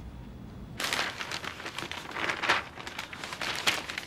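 Newspaper pages rustling and crackling as they are handled and turned, in irregular bursts starting about a second in.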